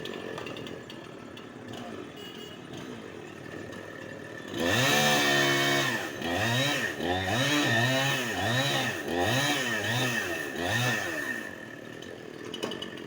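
Chainsaw engine starting to run about four seconds in, then revved up and down about six times in a row before dropping back toward idle.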